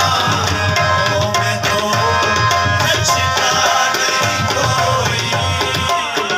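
Instrumental qawwali passage: tabla drumming under held harmonium notes, without singing.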